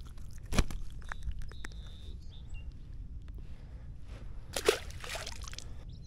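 Handling knocks and clicks in a kayak, over a steady low rumble. A sharp knock comes about half a second in, and a louder noisy burst with a falling pitch comes near the end.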